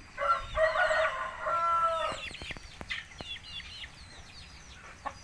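A rooster crowing once, a steady call about two seconds long, followed by short high cheeps from other chickens in the coop.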